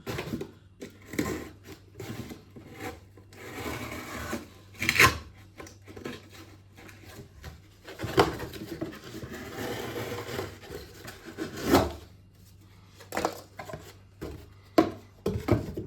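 A knife cutting through thick cardboard in several rasping strokes, mixed with sharp knocks and rustling as the cardboard pieces are handled.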